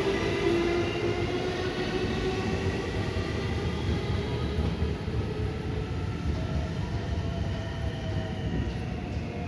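JR West 223 series 2000 electric multiple unit pulling out and accelerating away, its traction motor whine slowly rising in pitch over a steady wheel-on-rail rumble. The sound fades gradually as the train recedes.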